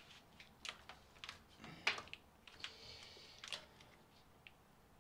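Faint, scattered clicks and taps of electrical cables and their fittings being handled and pushed into place at a battery bank, with a short scraping rasp about halfway through.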